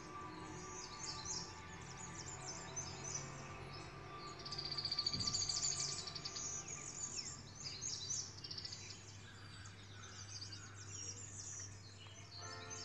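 Soft background music with birds chirping over it, with a louder bird trill about five seconds in.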